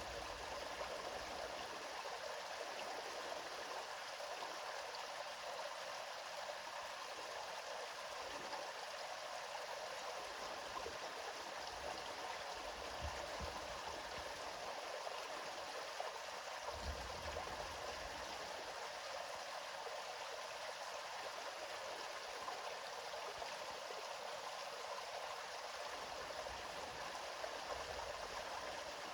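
Stream water flowing steadily over rocks, an even rushing sound with faint low rumbles coming and going now and then.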